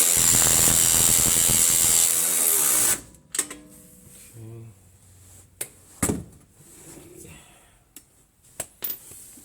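Milwaukee 1/4-inch extended cordless ratchet running for about three seconds, then stopping suddenly, followed by a few sharp metallic clicks and clanks of tools and parts.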